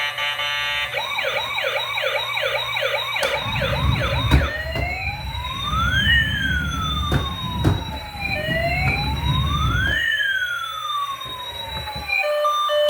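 Electronic emergency-vehicle siren. It sounds a fast yelp of rising-and-falling sweeps, about three a second, then changes to a slow wail that rises and falls about every four seconds. A low rumble with a few knocks runs under the middle of it.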